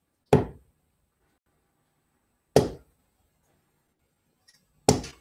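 Three steel-tip darts hitting a bristle dartboard one after another, about two and a quarter seconds apart, each a sharp knock.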